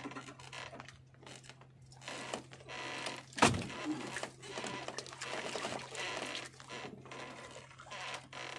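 Handling noises on a small wooden outrigger boat as a handline is worked: light clicks and rustles with one sharp knock about three and a half seconds in, over a low steady hum.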